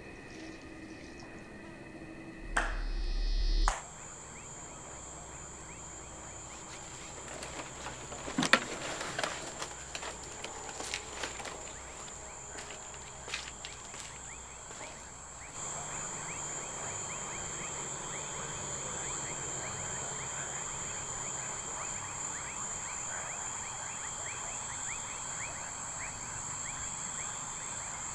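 Outdoor ambience of insects: a steady high cricket-like trill with scattered sharp clicks and light knocks. About three seconds in, a brief low swell with hiss starts and stops abruptly. About halfway through, the ambience steps up to a louder, denser chorus of quick high chirps.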